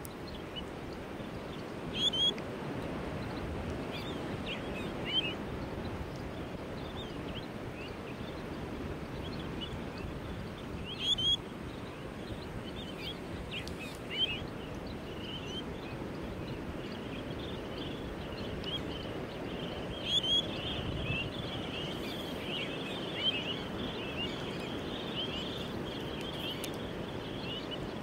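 Heavy surf breaking in a steady low wash, with short high chirping bird calls every few seconds and a denser run of chattering calls in the second half.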